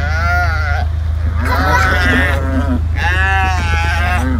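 Cattle bawling, three loud drawn-out calls about a second apart, while a calf is held down for ear tagging. A utility vehicle's engine idles steadily underneath.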